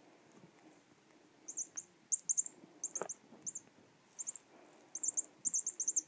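Electronic chirping bird toy giving short, very high chirps in quick clusters of two to four, starting about a second and a half in and repeating through the rest. A single sharp knock about three seconds in.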